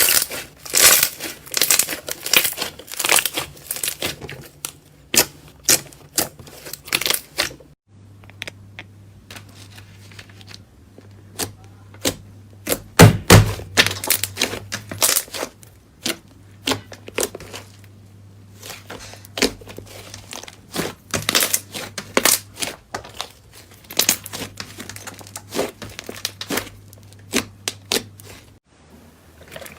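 Slime being squeezed and pressed by hand, making rapid crackling clicks and pops. The sound changes character about eight seconds in.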